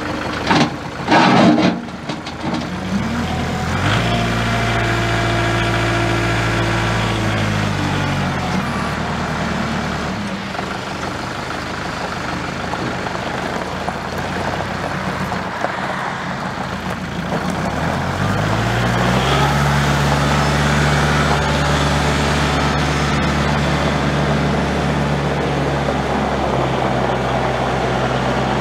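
Kubota L4701's four-cylinder diesel engine running as the tractor drives. Revs climb about three seconds in, ease off around eight to ten seconds, then climb again near eighteen seconds and hold steady. A few loud knocks come in the first two seconds.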